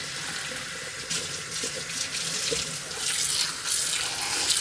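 Kitchen faucet running steadily into a bucket, the stream splashing on wet sandpaper and dish soap as the bucket fills with soapy water.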